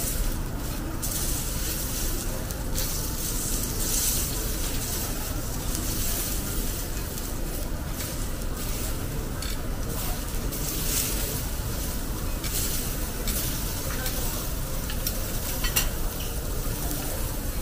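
Lamb chop sizzling on a hot steel teppanyaki griddle as it is cut into pieces, a steady frying hiss that swells and eases, with a few light clicks of the knife and fork against the steel.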